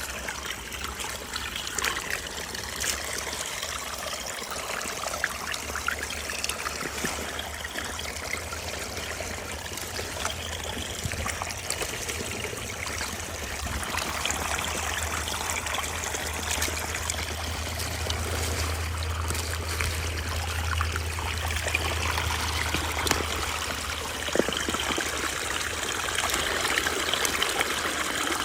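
Small creek water trickling and running steadily over stones, fed from a hole in the ground that looks like a freshwater spring.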